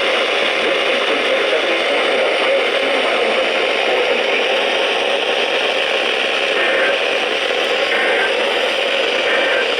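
Loud, steady radio static hiss.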